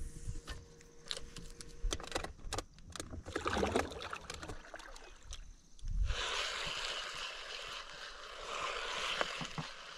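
A kayak on the water: a few small knocks and clicks of gear on the hull, then from about six seconds a steady rush of water.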